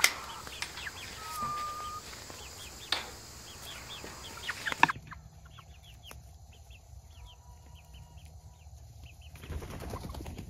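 Young chickens clucking and giving short high peeps as they come out of their run, with a couple of sharp knocks in the first half and a burst of wing flapping near the end.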